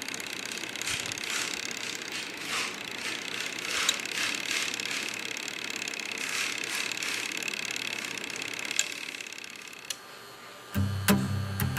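Semi-automatic washing machine's mechanical timer running: a steady whirr with scattered clicks. Music starts about a second before the end.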